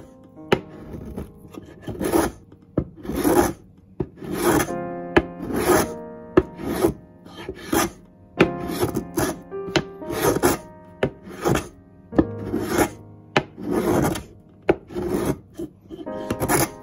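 A dried bonito (katsuobushi) block being shaved on a wooden katsuobushi plane box: repeated rasping strokes as it is pushed across the blade, about one or two a second. Soft background piano music plays underneath.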